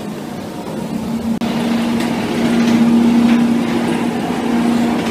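A rollercoaster train running along its track: a loud steady rumble with a low hum that swells about a second and a half in.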